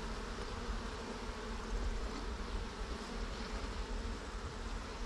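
Honeybees buzzing in a steady, even hum.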